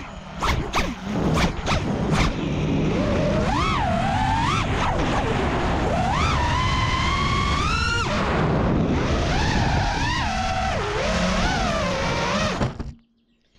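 FPV quadcopter's brushless motors and propellers whining in flight, the pitch rising and falling with each throttle change, over rushing wind noise. The sound cuts off abruptly about a second before the end.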